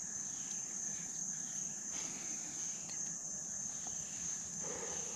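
Crickets chirping in a steady, continuous high-pitched chorus, with a soft, faint breathy sound near the end.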